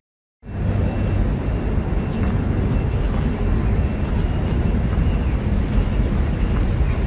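Steady low rumbling outdoor noise, starting after a brief silent gap at the start.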